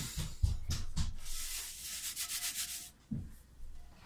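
Paper towel rubbing the inside of a cast iron skillet dry, in quick repeated scraping strokes. The wiping stops about three seconds in.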